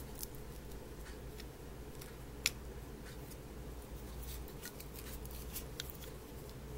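Scattered small clicks and taps of a metal hinged cuff bracelet being handled and opened to go on the wrist, one sharper click about two and a half seconds in, over a steady low hum.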